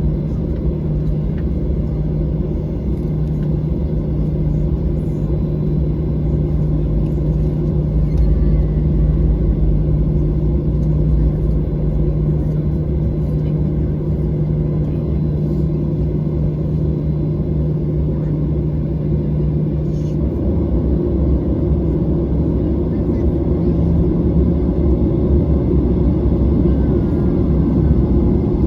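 Boeing 737-800's jet engines at takeoff thrust, heard from inside the economy cabin: a loud, steady rumble. A low steady drone within it stops about two-thirds of the way through.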